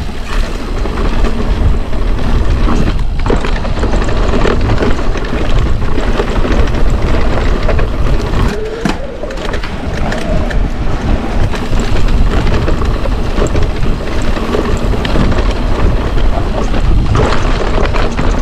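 Mountain bike riding down a rocky technical trail: wind rushing over the action camera's microphone, with tyres rolling over rock and the bike rattling in many quick clicks and knocks.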